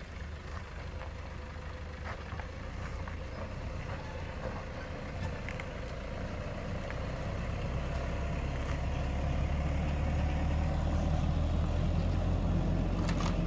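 Toyota Hilux pickup camper's engine running at low revs as the truck drives down a dirt forest track, a steady low hum that grows louder from about halfway through as it comes close.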